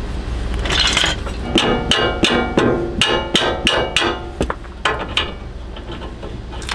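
A hammer striking the steel front sway bar under a 2002 Toyota Sequoia: about ten sharp metallic blows, roughly three a second, each ringing briefly, as the bar is knocked free of its frame mounts.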